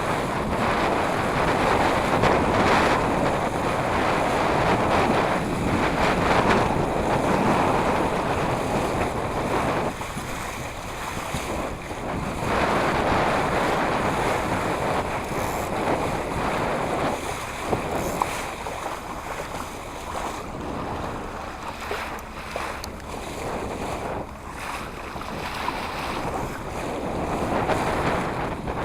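Wind buffeting the microphone over water rushing and splashing along a small sailing dinghy's hull, swelling and easing in gusts and quieter past the middle.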